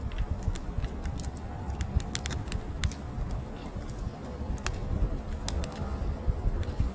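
Split firewood logs burning in an open wood fire: irregular sharp crackles and pops, several a second, over a steady low rumble.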